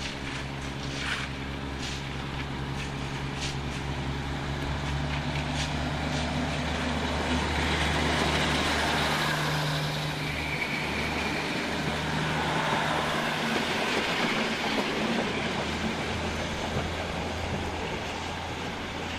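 NS DE2 two-car diesel-electric train pulling out of the station and passing close by: a steady diesel engine drone with wheel clicks over the rails. It is loudest as the train passes about eight to ten seconds in, then fades as it draws away.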